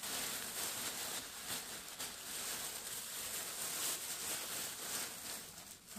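Thin plastic shopping bag rustling and crinkling continuously as items are pulled out of it, with many small crackles.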